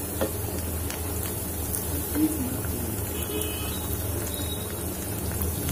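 Poha and spinach cutlets deep-frying in hot oil, a steady sizzle. A few light clicks of a slotted spatula against the pan come as the cutlets are turned.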